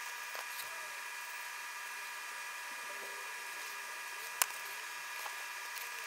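Faint steady hiss with a thin high electrical whine, and one sharp click a little past four seconds in, from tweezers placing surface-mount components on a circuit board.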